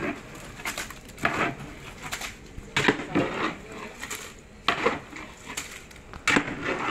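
Metal utensils and pots clattering in a kitchen: an irregular string of sharp knocks and clinks, about two a second, some louder than others.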